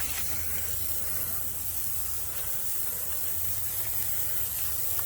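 Water spraying from a hose onto freshly sawn bur oak slabs to wet them and bring out the grain: a steady hiss, with a steady low hum underneath.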